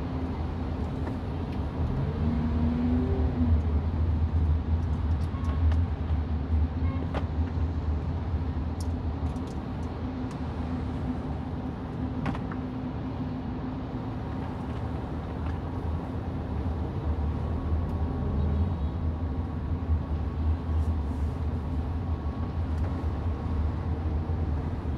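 A car driving on a wet road in the rain: a steady low rumble of engine and tyres under a hiss of rain and road spray, with scattered light ticks. It grows a little louder twice.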